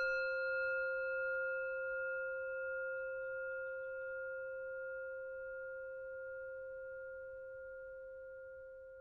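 A singing bowl, struck once, ringing and slowly dying away. Its low tone wavers gently, and its higher overtones fade out first.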